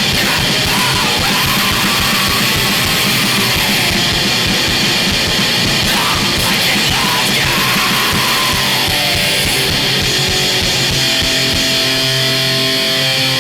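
Harsh noise music: a dense, loud, unbroken wall of noise, with falling squeals about a second in and again from about six to nine seconds in. Near the end, steady held tones begin to show through the noise.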